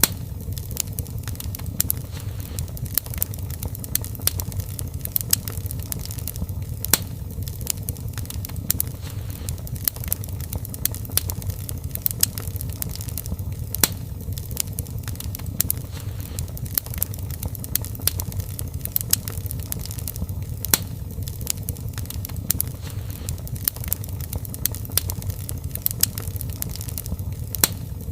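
Wood fire burning in a fireplace: a steady low rumble of flames with irregular sharp crackles and pops throughout.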